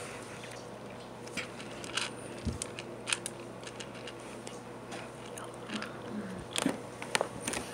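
A kitten eating dry cat food, with small irregular crunches and clicks as it chews kibble.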